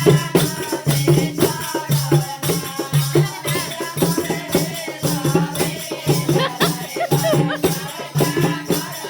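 Folk devotional song accompaniment: a steady, repeating beat with a shaken rattle, and faint voices over it.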